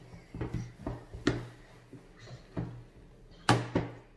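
A slime kit's box being opened and its contents handled: a series of knocks and clicks, the loudest about three and a half seconds in.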